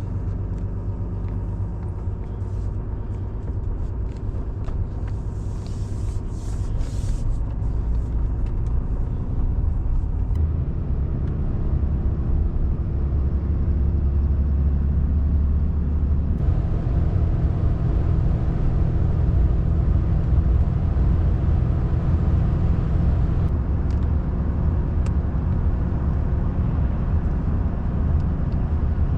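Pickup truck on the road, its engine and road noise making a steady low rumble that shifts in tone twice along the way.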